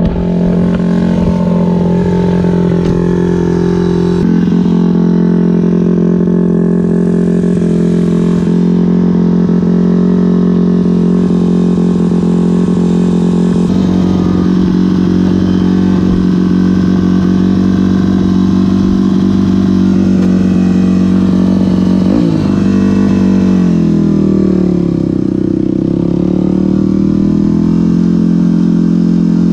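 Dirt bike engine running steadily at idle. Near the end the engine note dips and rises again as the bike moves off.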